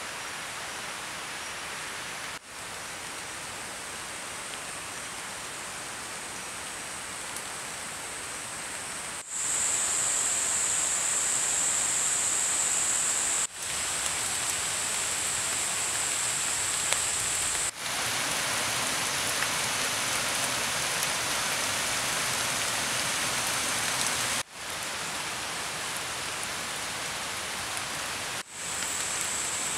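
Steady rain falling on rainforest foliage, with a high steady whine in some stretches. The sound cuts out briefly several times where the shots change.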